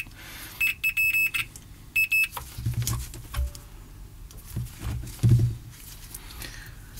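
Multimeter continuity beeper giving short, broken beeps, once about half a second in and again around two seconds in, the sign of the probes briefly finding a connection. Light clicks and low handling noises follow.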